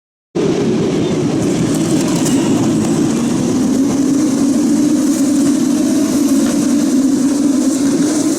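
Formula 2 race cars' engines running, heard as a loud, steady, dense rumble with no single car passing. It cuts in abruptly just after the start.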